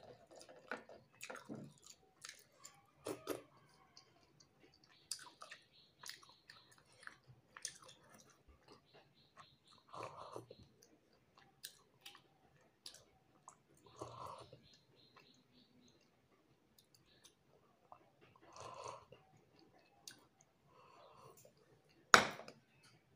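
Close-up eating sounds of a person finishing sour dal from a glass bowl: soft chewing, mouth sounds and sips with scattered small clicks, and one sharp clink near the end as the glass bowl is set down on the plate.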